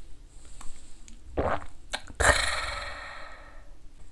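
A man's satisfied, raspy gasp of breath after downing a shot of soju. It starts suddenly about two seconds in and fades away over about a second and a half.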